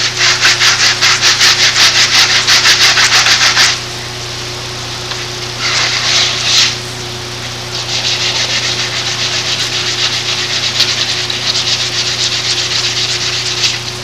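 Rapid back-and-forth rubbing of an abrasive on a part, done by hand. A run of strokes at about five a second lasts nearly four seconds, a short burst comes near the middle, and a longer run of quicker, more even strokes follows near the end.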